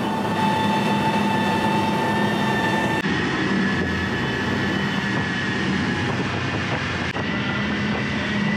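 Triple Seven Marine 627 hp outboards, supercharged V8s, running at high speed: a loud, steady engine drone with a steady high whine over the rush of wake and wind. The sound shifts abruptly twice, about three and seven seconds in.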